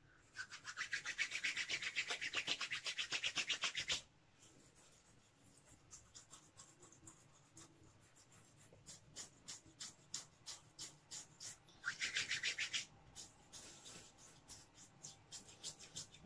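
Hands rubbing pre-shave into a short beard, face and neck: fast, even rubbing strokes, several a second, loudest for the first few seconds and again briefly about twelve seconds in, softer in between.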